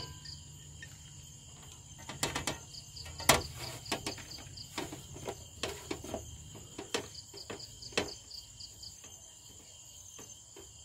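Crickets chirping steadily in the background, with scattered light clicks and taps as the masala-coated corn skewers are handled and knocked against the plastic plate. The loudest tap comes about three seconds in.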